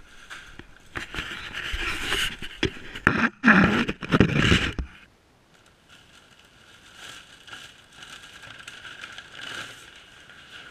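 Plastic shopping bag rustling and crinkling, with scrapes and sharp knocks of handling, loud for a few seconds near the start, then fainter, scattered rustling.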